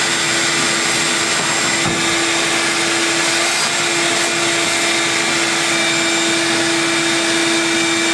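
Ridgid wet/dry shop vacuum running steadily, its hose nozzle sucking up loose debris and bits of old flotation foam from the floor of a boat hull. A constant motor whine sits over the airflow noise and shifts slightly in pitch about halfway through.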